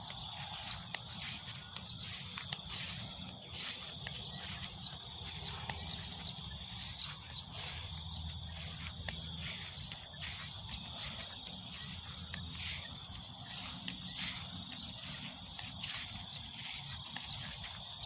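Steady high-pitched chorus of insects in a rice field, two unbroken ringing tones throughout, with scattered light clicks and knocks.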